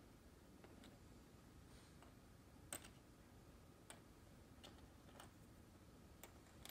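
Near silence with about half a dozen faint, light clicks of wooden toothpicks being set down and stacked on a wooden floor, the clearest a little under three seconds in.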